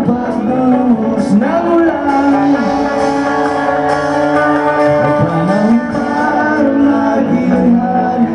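Live pop-rock band performance: a male lead singer holds long, sliding notes over guitar and band accompaniment.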